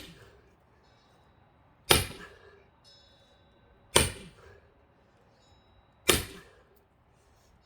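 Axe striking a thick pine log three times, about two seconds apart, each a sharp crack with a short ring after it.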